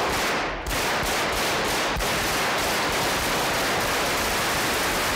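Sustained bursts of automatic gunfire, close and loud, echoing through the Spanish Congress chamber.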